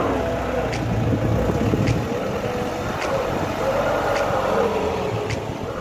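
Diesel engine of a truck-mounted crane running steadily as it hoists a camel into a truck bed, with faint ticks about once a second and wavering pitched sounds over it.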